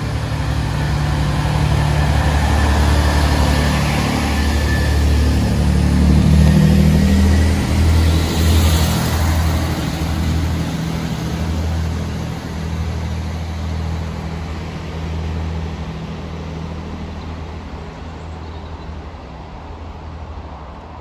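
Diesel train engine running with a deep, steady throb, growing louder to a peak about seven to nine seconds in, then slowly fading.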